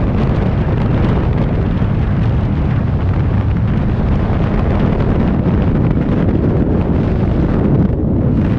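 Freefall wind rushing over and buffeting the microphone of a skydiver's helmet or body-mounted camera: a loud, steady, low rumbling roar of air.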